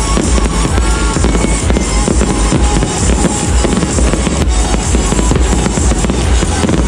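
Fireworks bursting in quick succession, a dense run of bangs and crackles, over loud music with drums.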